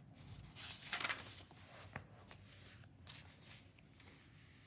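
A book's paper page being turned by hand: one brief rustle of paper about a second in, then a small tap.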